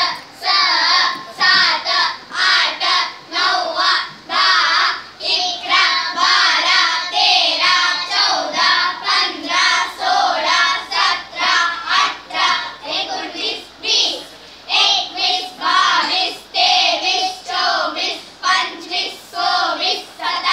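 A child chanting the numbers in Konkani in a sing-song voice, one short phrase after another in a steady rhythm.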